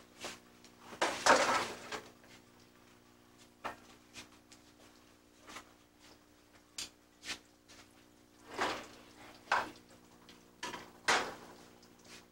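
Kitchen clatter: scattered knocks and scrapes of metal pans and plates being handled and set down, the loudest about a second in, over a faint steady hum.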